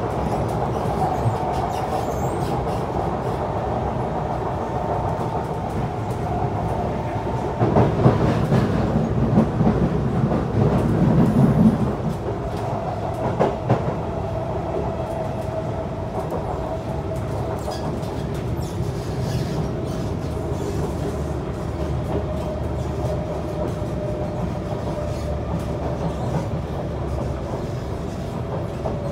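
Kawasaki C151 metro train running at speed, heard from inside the carriage: a steady rumble of wheels on rails with a continuous whine. The rumble grows louder and rougher for a few seconds about eight seconds in, and a couple of sharp clacks follow.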